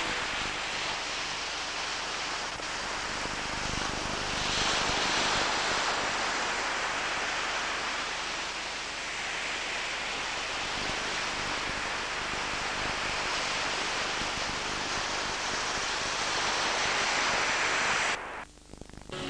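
Sea waves breaking on a sandy shore: a steady rush of surf that swells twice and cuts off sharply near the end.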